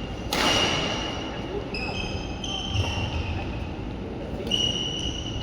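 Badminton rally on an indoor court: sharp racket hits on the shuttlecock, one near the start and another near the end, with sports shoes squeaking on the court floor several times in between.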